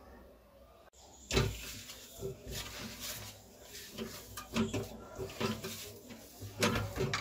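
Stiff whole-wheat dough being kneaded and pushed around a stainless steel plate: irregular soft thumps and scrapes of dough against the steel and of the plate shifting. It starts with a sharper knock about a second in.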